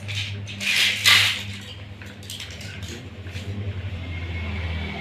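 Small plastic toys clattering and scraping on a tiled floor as a child rummages through a pile of them, loudest about a second in, with lighter ticks after, over a steady low hum.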